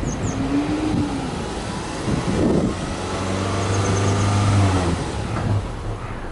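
Subaru Legacy B4 2.5i's EJ25 flat-four heard at the tailpipes while free-revving. It is blipped briefly, rising and falling, about a second in, then held at raised revs for about two seconds before dropping back toward idle near the end.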